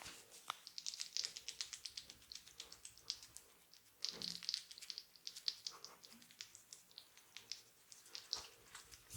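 Fingers and nails working through hair and scalp in a head massage: a quick, uneven run of short, crisp scratching crackles, thickest about four seconds in.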